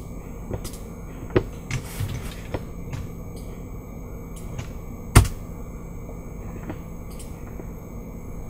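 Several sharp computer mouse clicks over a steady low hum, the loudest a little past halfway.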